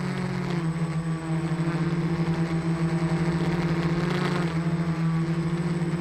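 Electric motors and propellers of a model aircraft carrying the camera, heard from on board as a steady hum. The pitch shifts slightly a little past halfway.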